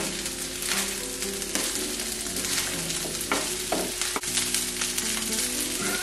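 Fried rice sizzling in a nonstick frying pan on a gas burner while it is stirred and tossed with a spatula. There is a steady hiss of frying with frequent scraping clicks from the utensils against the pan.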